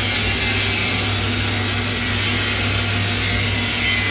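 Rice-husk furnace burning hard with its fire well alight: a steady rushing noise over a constant low machine hum.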